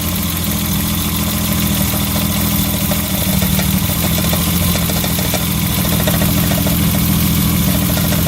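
BMW E30 325is's straight-six engine idling, its note shifting about three seconds in as carb cleaner is sprayed on a fuel injector and drawn in through a leaking injector O-ring. The change in idle is the sign of a vacuum leak at that injector.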